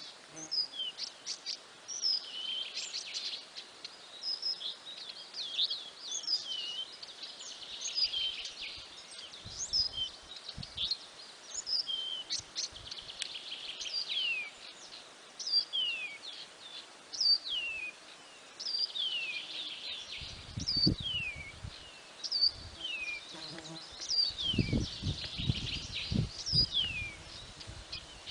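Small forest birds chirping steadily: many short, high calls sliding downward, repeated every half-second or so over a faint high hiss. A few dull low thumps come in the second half.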